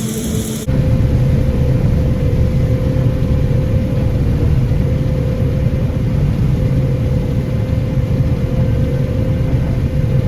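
Heavy harvest machinery engine running steadily under load, a loud low rumble with a steady hum above it. It cuts in abruptly a little under a second in.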